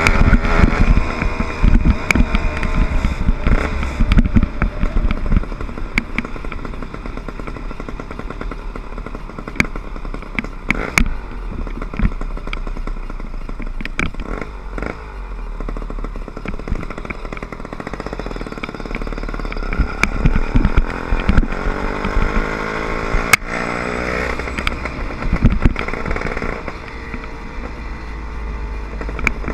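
Small engine of a 60/80cc motorized bicycle running as it is ridden. Its pitch rises and falls as the rider speeds up and slows. It is quieter through the middle and picks up again after about twenty seconds. Sharp rattles and knocks from the bike over road bumps are scattered throughout.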